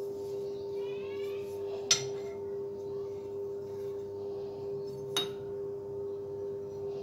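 Angle grinder driving a homemade belt grinder, running steadily with an even whine. Two sharp metallic clicks about three seconds apart.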